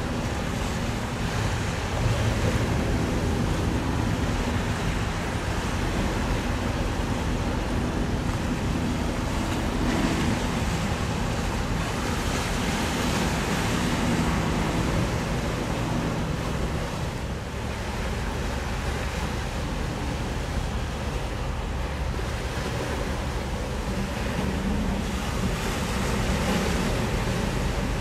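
Wind buffeting the microphone over choppy estuary water lapping against the shore, a steady rushing noise. Underneath runs a faint, steady low drone.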